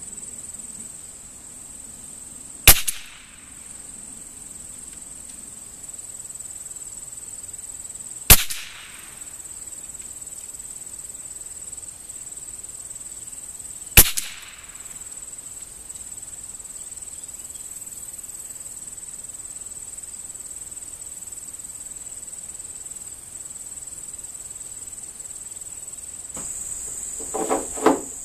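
.22 rimfire rifle firing three shots about five and a half seconds apart, each a sharp crack with a short echo, over a steady high insect trill. Near the end comes a quick run of clicks.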